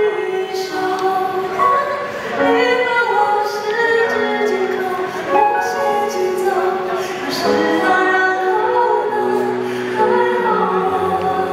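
A male singer with a high voice singing a slow love song into a handheld microphone, in held notes and flowing melodic phrases.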